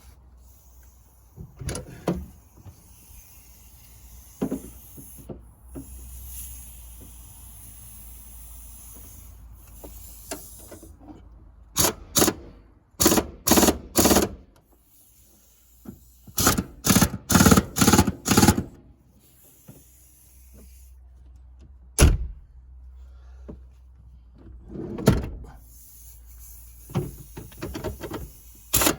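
Runs of quick, sharp clicks and a few single knocks from hand work on a car's seat belt buckle assembly.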